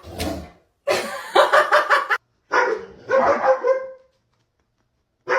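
Dog barking: a short bark at the start, then two runs of quick barks, about a second in and again near the three-second mark.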